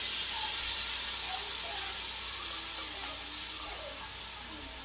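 Blended pepián sauce hitting a pot of hot oil, sizzling steadily as it is poured in and stirred, easing slightly toward the end.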